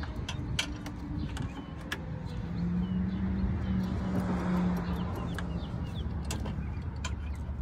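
Scattered light clicks and clinks of hands and tools working at a car battery's terminals and hold-down while a new battery is fitted, over a steady low rumble. A low hum comes in about two and a half seconds in and fades out about five seconds in.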